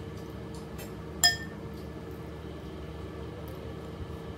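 A single sharp clink of an eating utensil striking a large glass bowl of noodle soup about a second in, ringing briefly, over a steady low hum.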